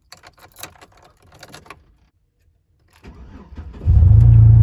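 A run of light clicks and taps, a short pause, then a loud, steady low drone of a car, heard from inside the cabin, coming in about four seconds in.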